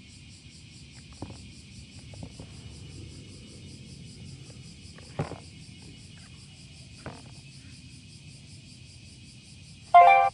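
Insects chirring steadily in a rapid, even pulse, with a few light knocks. A short, loud ringing tone cuts in near the end.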